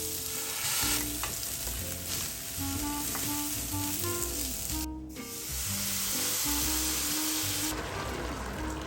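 Food sizzling as it fries in a pan, a dense steady hiss that breaks off briefly about five seconds in, then resumes and thins near the end. Soft background music plays under it.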